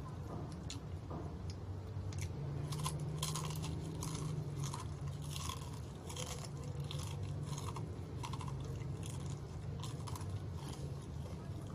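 Close-up chewing of crispy fried chicken: repeated crisp crunches of the battered coating being bitten and chewed, a couple per second, over a steady low hum.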